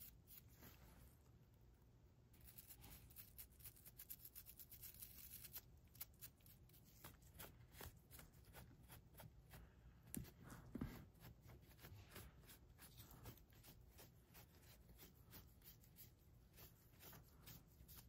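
Near silence, with faint light clicks, taps and rubbing from small objects being handled. A denser stretch of soft rustling comes a few seconds in, and a couple of slightly louder knocks come just past halfway.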